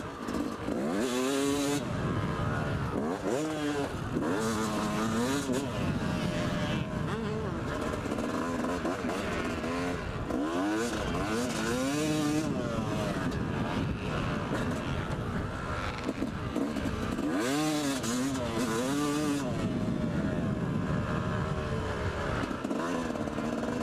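Yamaha YZ250 two-stroke motocross bike engine being ridden hard, revving up and dropping off again and again as the throttle is opened and closed through jumps and corners. The microphone is right on the bike, with brief bursts of rushing hiss.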